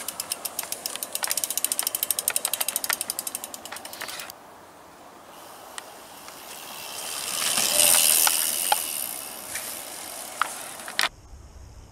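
A mountain bike's rear freehub clicking rapidly as the bike is wheeled along, stopping abruptly after about four seconds. Then comes the rush of the bike's tyres rolling over dirt, swelling to its loudest about eight seconds in with a few sharp ticks, and fading.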